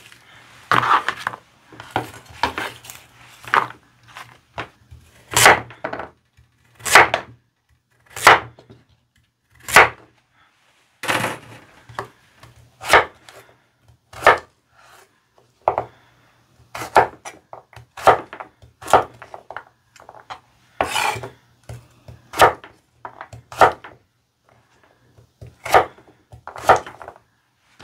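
Kitchen knife cutting onion and then carrot on a wooden cutting board: sharp knocks of the blade striking the board, unevenly spaced at roughly one a second.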